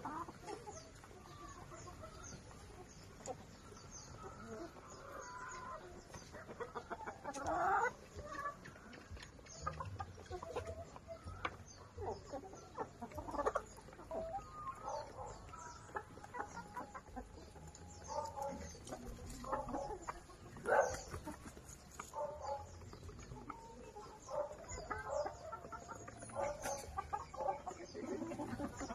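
Chickens clucking and calling, many short calls from several birds, with louder calls about eight seconds in and again near twenty-one seconds.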